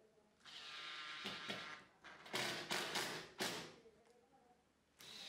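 Cordless drill-driver running into a wooden frame: one steady run of about a second and a half, then three short, louder bursts. It starts again near the end.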